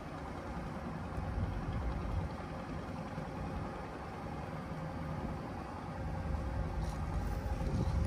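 Boat engine running steadily at low revs, a low rumble with a faint constant hum that swells a little about a second and a half in and again near the end.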